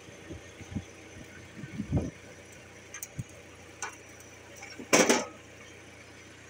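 Scrap truck parts knocking and clanking as they are handled, with one loud metallic clank about five seconds in, over the steady low hum of an idling forklift engine.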